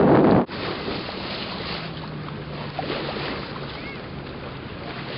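Ferry bow wave: water rushing and splashing along the hull. Loud wind buffeting on the microphone cuts off abruptly about half a second in, leaving the steady water noise with a faint low hum underneath.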